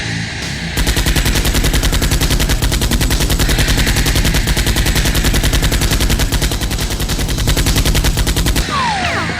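Sustained automatic gunfire: rapid, evenly spaced shots at about a dozen a second, starting about a second in and stopping shortly before the end.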